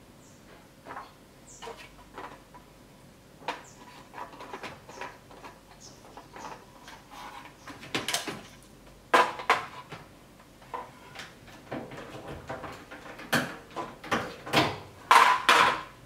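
Scattered clicks, taps and clatters of hard plastic and metal parts and tools being handled, sparse at first and busier from about eight seconds in, with the loudest knocks near the end.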